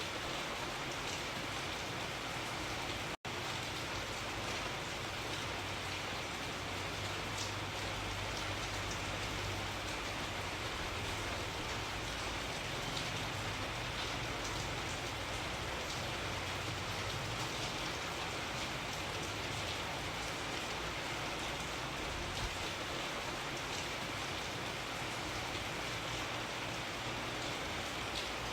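Steady rain falling, an even continuous patter with no change in strength, broken only by a split-second gap about three seconds in.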